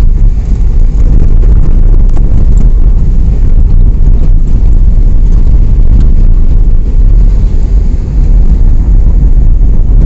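Car driving along a road: a loud, steady low rumble of road and wind noise.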